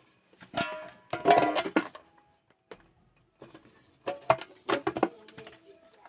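Kitchen pots and dishes clattering and knocking, in two bursts, with some ringing tones.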